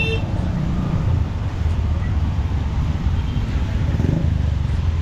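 Steady low rumble of road traffic, with a short vehicle horn toot ending right at the start.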